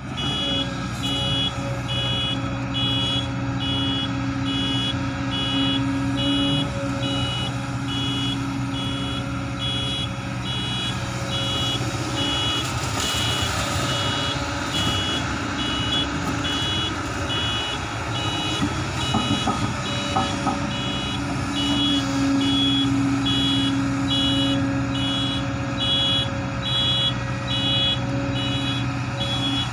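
Heavy construction machinery running with a steady diesel engine hum, while a backup alarm beeps over it, about two high beeps a second. There are a few knocks around two-thirds of the way through.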